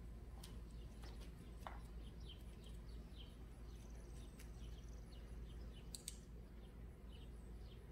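Faint outdoor background: small birds chirping again and again in short notes that dip in pitch, over a steady low hum, with a few soft clicks.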